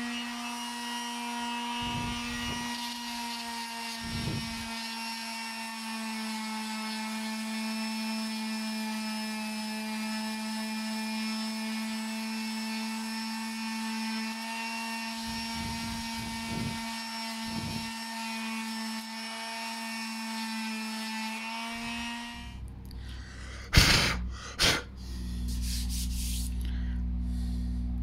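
Electric orbital sheet sander running on a pine handrail and newel post: a steady, even-pitched buzzing hum with a few brief scuffs as it is worked over the wood. It stops about 22 seconds in, followed by two loud knocks.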